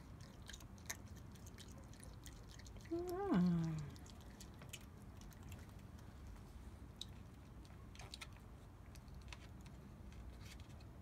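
Pet raccoon chewing halved seedless grapes, a run of small, irregular wet smacking clicks. About three seconds in, a short voice sound rises and then drops in pitch.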